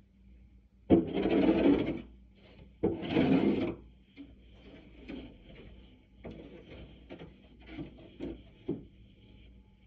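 Plastic snow shovel scraping along concrete pavement: two long pushes through the snow a second apart, each starting with a sharp hit, then lighter scrapes and short knocks of the blade.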